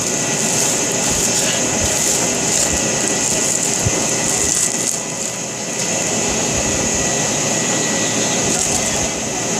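Knife packaging being handled and unwrapped: rustling and small handling noises over a steady whooshing background noise, with a single knock about four seconds in.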